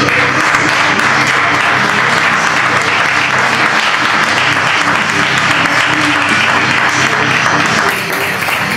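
Audience applauding, with rock music playing underneath; the applause thins a little near the end.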